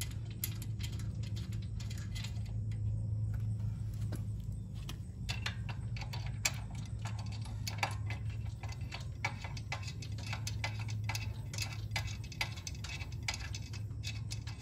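Irregular light metallic clicks and ticks as the mounting bolts of a pressure washer pump are threaded in by hand and the pump housing is handled against the engine, over a steady low hum.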